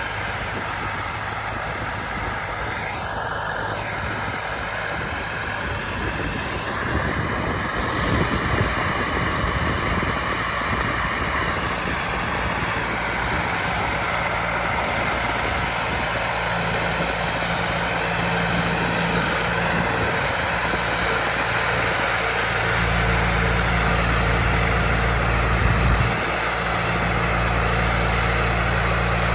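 Wheel Horse 418-A garden tractor's engine running steadily under load, driving a 42-inch single-stage snowblower that throws snow. The low engine sound grows heavier about three-quarters of the way through and dips briefly a few seconds later.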